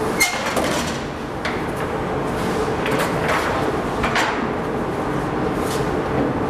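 A horizontal water mill grinding maize: a steady rumble and hum from the turning millstone, broken by sharp knocks and clicks at irregular intervals.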